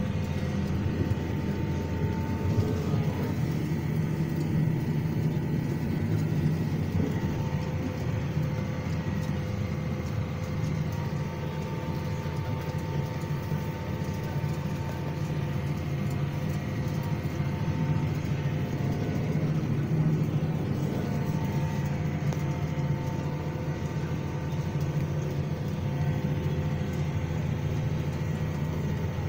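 Claas Arion 620 tractor engine running steadily under work while raking wheat straw into windrows, heard from inside the cab. It is a low, even drone with faint steady whining tones above it.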